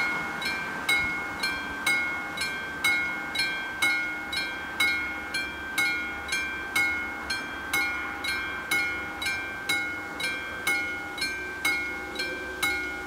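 Level-crossing warning bell ringing at about two strikes a second, each a bright ding that rings on and fades before the next. This is the crossing's warning of an approaching train, sounding with its flashing red lights.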